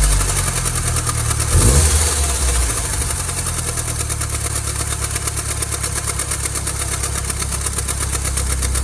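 Second-generation Mini Cooper's Prince 1.6-litre four-cylinder idling just after starting, with a fast, even rhythmic slapping rattle from the belt-driven water-pump drive. The noise comes from a drive belt with chunks missing: where the gap passes the friction wheel the belt collapses against it. The engine note swells briefly about one and a half seconds in.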